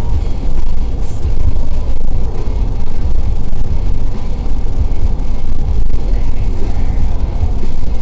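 Car driving at road speed: a steady, loud low rumble of tyres and engine as heard from inside the car.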